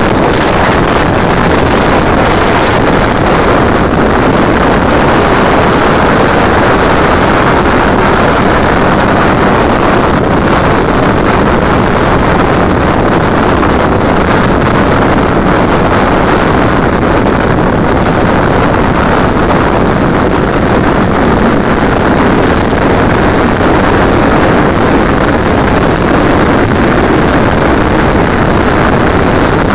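Steady wind noise buffeting the microphone on a motorcycle at highway speed, with the 2006 Suzuki GS500F's parallel-twin engine running underneath at a constant cruise.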